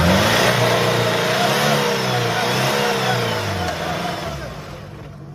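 Off-road 4x4 jeep's engine revving, its pitch rising and falling several times over a loud rush of noise, then dying away near the end.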